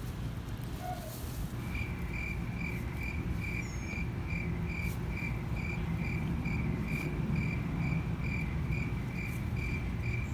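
A cricket chirping in a steady even rhythm, about three chirps a second, starting about two seconds in, over a low steady background rumble.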